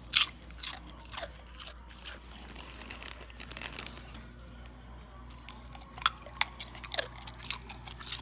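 A dog crunching and chewing tortilla chips: several sharp crunches in the first second or so, a quieter stretch of chewing, then another run of crunches in the last two seconds.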